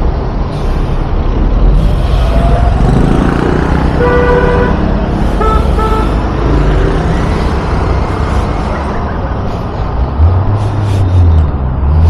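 City road traffic heard from a moving scooter: a steady rumble of engines, with a vehicle horn honking about four seconds in and again briefly a second later. A deeper engine drone comes in near the end.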